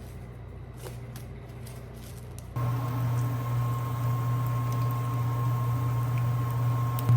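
A few light clicks, then about two and a half seconds in an electric kitchen appliance switches on and runs with a steady low hum and a faint high whine. Its hum steps louder near the end.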